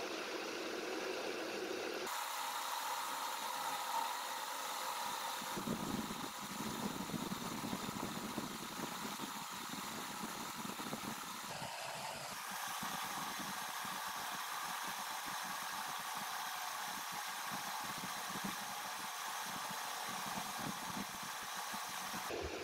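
Metal lathe running while its cutting tool cuts a groove into a spinning steel bar. The machine noise is steady and changes abruptly about two seconds in and again about twelve seconds in.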